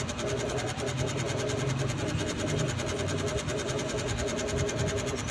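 A steady mechanical hum with a low drone.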